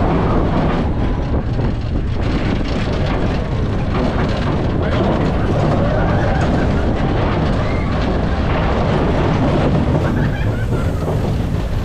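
Mine-train roller coaster running along its track: a loud, steady rumble of the train's wheels on the rails with rushing wind on the ride camera, and faint rising and falling squeals or voices a few times over it.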